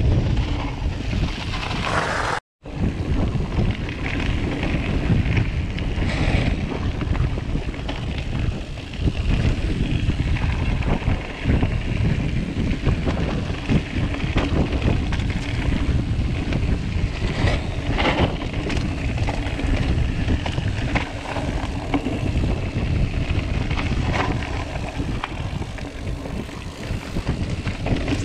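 Continuous wind rumble on the camera microphone during a mountain bike ride. Tyres roll over dirt and stones, and the Orbea Occam TR M30 full-suspension bike knocks and rattles over the rough singletrack. About two and a half seconds in, the sound cuts out for a moment.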